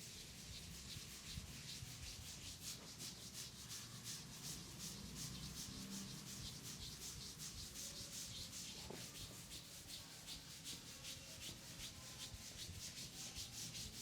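Hands rubbing briskly back and forth in a massage, a rhythmic hissing friction of about four strokes a second.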